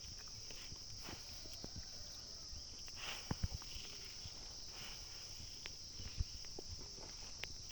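Steady high chirring of insects in the fields, with scattered soft knocks and rustling close by.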